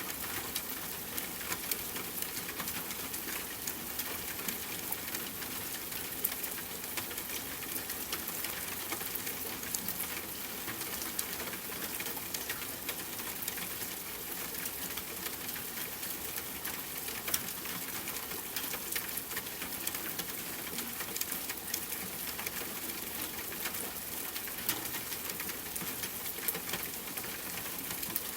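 Steady rain falling, with many individual drops ticking and pattering against a surface over an even hiss.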